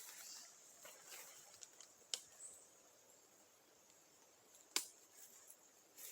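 Near silence with faint rustling and two sharp clicks, one about two seconds in and a louder one near the five-second mark.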